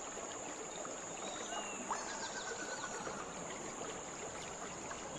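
River water flowing and trickling: a steady, even rush with a thin steady high tone above it. A few faint short whistles come about two seconds in.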